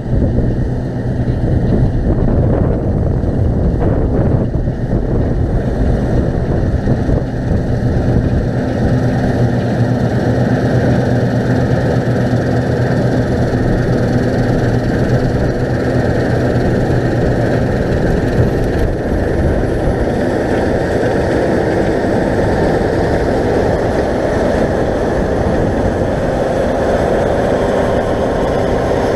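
Claas Lexion 670 Terra Trac combine harvester at work cutting winter barley: a loud, steady engine and threshing-machinery drone as the machine comes up close. Its pitch shifts slightly about two-thirds of the way through.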